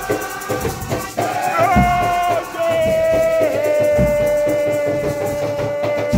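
Nyahbinghi drumming and chanting. Voices hold a long sung note from about a second in, over a slow bass-drum beat about every two seconds, with rattles shaking throughout.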